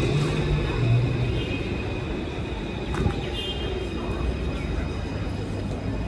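City street ambience: a steady low rumble of traffic with people's voices in the background.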